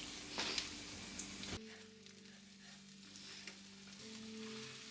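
Bread sizzling in butter in a frying pan, with a light clatter about half a second in. About a second and a half in the sizzle drops suddenly to a softer level under a low steady hum.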